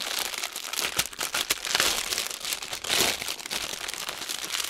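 Clear plastic packaging crinkling and rustling as a bundle of small plastic bags of diamond-painting drills is handled and pulled open, louder in places, with small crackles throughout.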